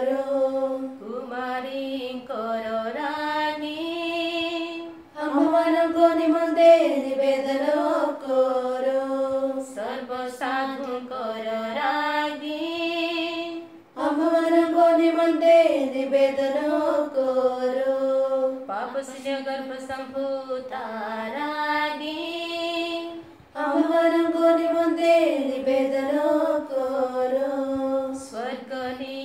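Voices singing a devotional litany to the Virgin Mary in Odia, a chant-like melody that repeats in phrases of a few seconds, with brief breaks about every nine seconds.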